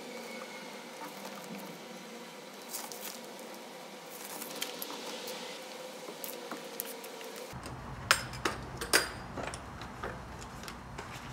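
Light metallic clicks and clinks from hand tools and sheet-metal panel hardware being handled, with a few sharp clicks in the second half, over room hiss.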